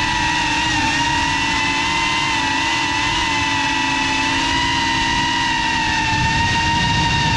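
FPV drone's electric motors and propellers whining at a steady, high pitch while cruising, heard from the camera on board the drone.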